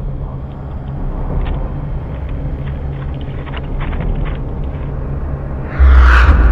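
Steady low hum and rumble of a security camera's outdoor microphone, with faint small ticks and rustles. Near the end a sudden loud burst of distorted static, a glitch sound effect, cuts in.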